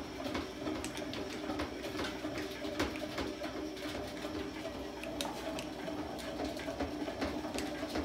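Honey extractor spinning two frames of comb: a steady whirring hum with scattered ticks and clicks.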